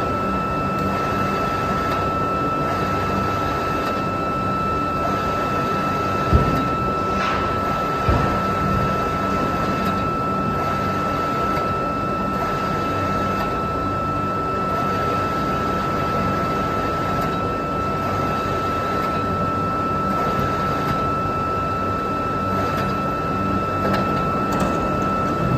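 Steady foundry machinery drone with a constant high-pitched whine running through it, and two short knocks about six and eight seconds in.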